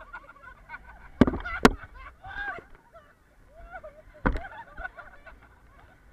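A group of people laughing and shrieking while riding in the open back of a 4x4, over a low rumble. Three sharp knocks cut through: two close together a little over a second in, the loudest sounds here, and one more about four seconds in.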